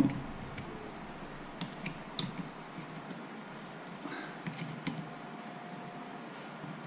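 Small scattered clicks and taps of a screwdriver and small parts against a plastic motorcycle turn-signal housing as its screws are undone.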